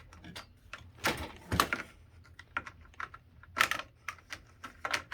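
Cables being pressed into a plastic J-channel cable management tray: a string of irregular clicks and rustles, with a few louder ones.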